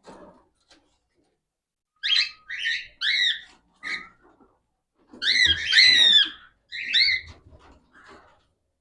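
Cockatiels calling: a few short, whistled chirps, then a louder run of longer calls that bend up and down in pitch.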